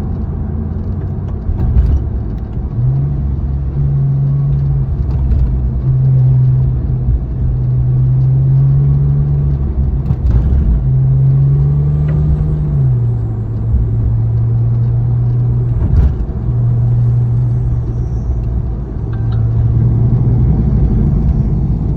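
Porsche 997 911 Carrera GTS's 3.8-litre flat-six on its stock exhaust, running at fairly steady revs with a low drone over a rumble. Its note steps up a little about three seconds in and drops back about thirteen seconds in, with a few brief knocks along the way.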